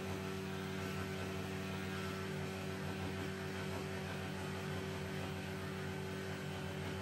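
500-watt CNC spindle running with a steady hum while its 1/8-inch single-flute end mill cuts a contour in an aluminum plate on a Comgrow Robo desktop CNC router.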